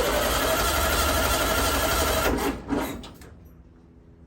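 The starter of a 1964 VW Beetle cranking its air-cooled flat-four engine for about two and a half seconds without it catching, then a brief second crank before it stops. This is a first start attempt on a gasoline prime, and the engine sounds like it wants to start.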